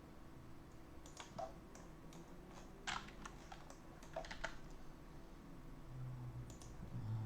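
Faint computer keyboard typing and clicks, scattered over the first half, with a brief low hum near the end.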